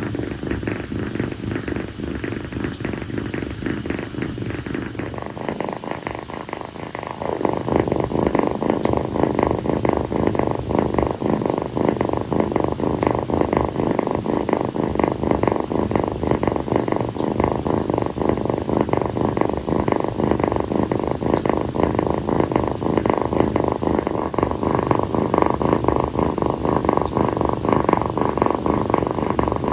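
Calico kitten purring steadily on a lap, a fast even rumble that grows louder about seven seconds in.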